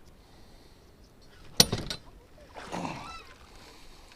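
A single sharp knock about one and a half seconds in, followed a second later by a short call that falls in pitch.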